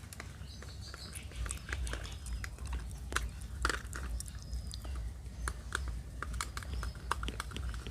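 Small screwdriver tightening screws into a plastic toy car, giving many short irregular clicks and scrapes.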